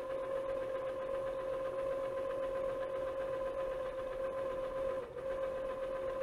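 Motor of a Sanjin DX-400 400-disc CD/DVD changer running with a steady whine as the mechanism fetches and loads disc one, with a brief dip about five seconds in.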